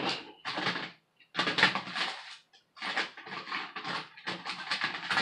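Fingers pressing and rubbing on a laptop's flat ribbon cable and its connector on the motherboard: a run of short scratchy rustles, about seven of them with short silent gaps between.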